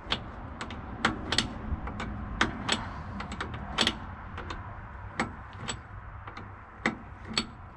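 Ratchet wrench clicking as it is cranked back and forth on the hex drive of a truck's manual hydraulic cab lift pump, pumping to raise the cab: irregular sharp clicks in small groups over a low steady rumble.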